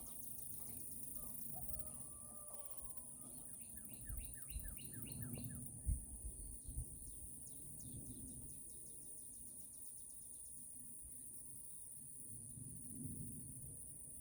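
Outdoor ambience of several wild birds singing, with quick chirping trills and runs of short repeated notes, over a steady high hiss. A few soft low thumps and knocks come in the middle, the sharpest about six seconds in.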